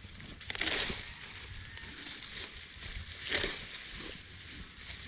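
Rice stalks being cut by hand with a sickle, with crunching and rustling of the stalks and two louder cuts about half a second and three and a quarter seconds in.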